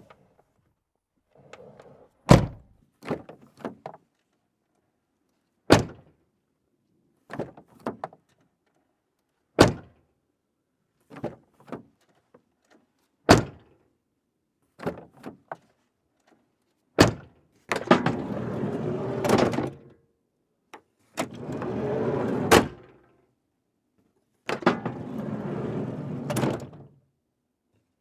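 Doors being slammed shut one after another, a loud bang every three to four seconds with smaller clicks and knocks of the latch and handle between them. In the second half, several of the slams come with a rushing, scraping noise about two seconds long.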